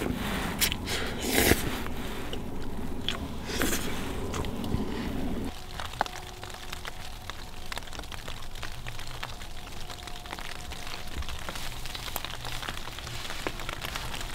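Someone eating noodles in the first few seconds, with a few crunches and knocks. From about five and a half seconds in, snow pellets (graupel) patter on the tent fly as heard from inside the tent: a steady spatter of many fine, light ticks.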